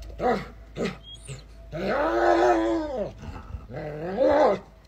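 German Shepherd making drawn-out grumbling vocalisations as it plays: two short ones in the first second, a long one that rises and falls about two seconds in, and another near the end.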